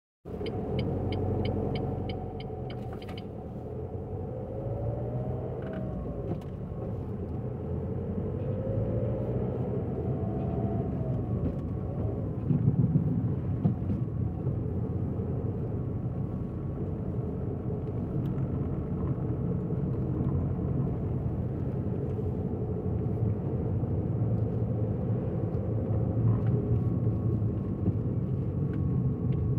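A car driving, with a steady engine and road rumble. The engine pitch rises and falls twice in the first ten seconds, and there is quick, even ticking in the first three seconds.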